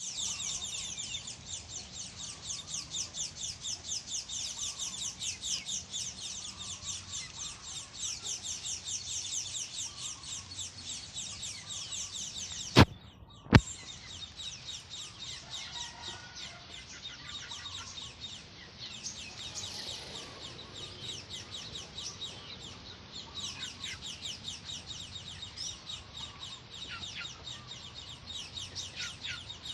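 Many small birds chirping rapidly and continuously in a dense, high-pitched chorus. Two sharp clicks sound close together about halfway through, and the chirping goes on after them a little quieter, with a few downward-sweeping calls.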